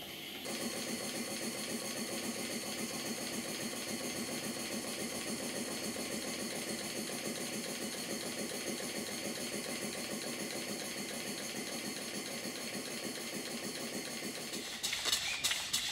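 Live-steam model beam engine running fast with a quick, even mechanical beat. About a second before the end it gives way to sharper, regular clicking.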